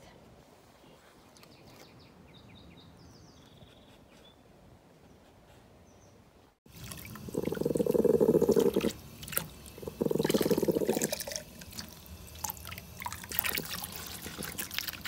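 Electric pet clippers buzzing in two runs, about two seconds and then about one second, with crackling as the blade works through the dog's matted coat.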